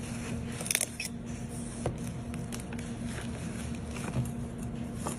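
A metal scraper blade prying a brittle bowl mold off a set plaster cast: scattered small cracks, scrapes and clicks as the mold splits away, over a steady low hum.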